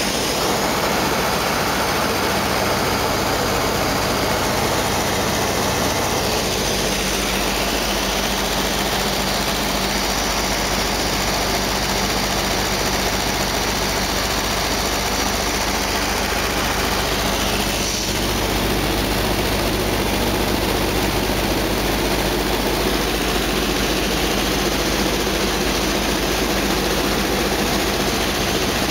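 Steady drone of an airplane's engine and propeller heard from inside the cockpit, with rushing air noise over it.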